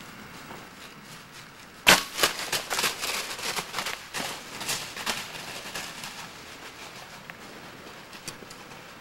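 Compound bow shot: a sharp snap as the string is released, followed by about three seconds of crackling and crashing through dry fallen leaves as the deer runs off, fading away.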